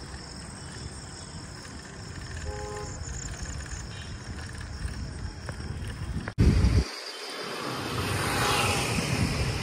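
Outdoor night ambience of crickets or other insects, heard as steady high tones over a low background noise. About six seconds in this cuts to loud wind rumble buffeting the microphone of a phone carried on a moving bicycle.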